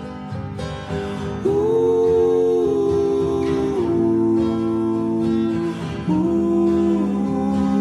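Slowed-down, reverb-heavy acoustic pop song without lyrics: acoustic guitar with long held notes that move to new pitches about one and a half and six seconds in.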